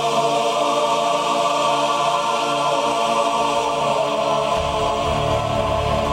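Soundtrack music of sustained held chords; a deep bass layer comes in about four and a half seconds in.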